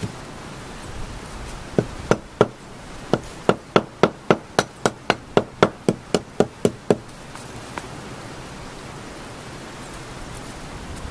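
A hand tool hammering on the wooden logs of a cabin wall: about seventeen sharp knocks. Three come about two seconds in, then after a short pause a steady run of roughly three strikes a second, which stops suddenly about seven seconds in.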